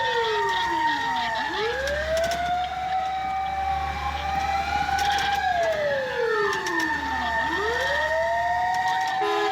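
Fire truck sirens wailing: one holds a steady high tone while another slides down in pitch and sweeps back up, twice, over a low engine rumble.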